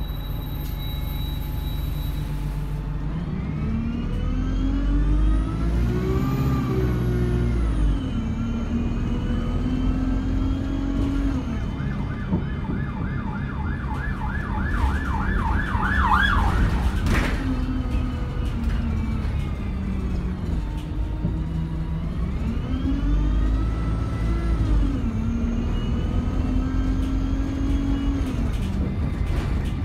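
Alexander Dennis Enviro200 single-deck bus heard from inside the cabin. Its engine and gearbox whine rises as it accelerates and falls back at each gear change or slowdown, in several pulls. About halfway through, a rapid warbling siren runs for a few seconds and cuts off suddenly, followed by a single sharp click.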